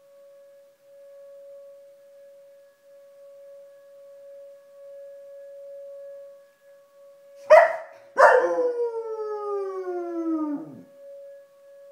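An outdoor storm warning siren sounds one steady tone, swelling and fading, on its monthly test. About seven and a half seconds in, a German shepherd lets out a short cry, then one long howl that falls in pitch.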